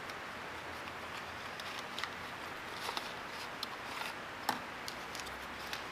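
Small clicks and rustles of a small cardboard box being opened by hand and its contents unwrapped from paper, over a steady faint room hiss; the sharpest click comes about four and a half seconds in.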